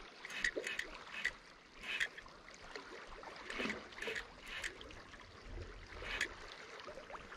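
Hooked steelhead splashing and swirling at the surface of a river, irregular short splashes over the steady flow of the water.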